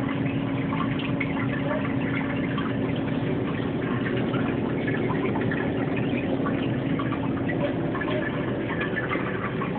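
Reef aquarium water circulating, trickling and splashing steadily, with a steady low hum underneath.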